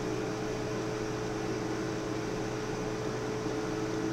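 Steady electrical hum of running equipment, two held tones over an even hiss.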